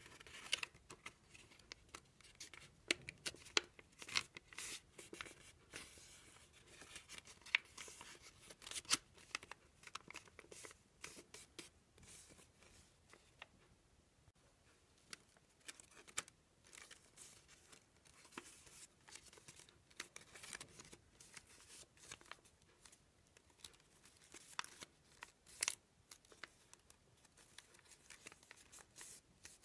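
Paper rustling and crackling as a square of origami paper is folded and creased by hand, in short, irregular crisp crinkles. The sound eases off briefly about halfway through.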